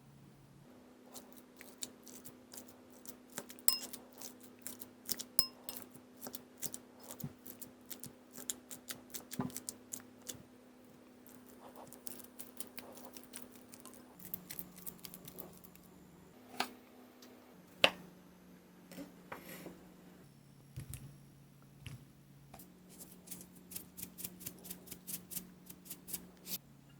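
Small sharp clicks and scrapes of a kitchen utensil working on a mini sweet pumpkin (kabocha) on a cutting board, coming in irregular clusters, with one louder knock a little past the middle.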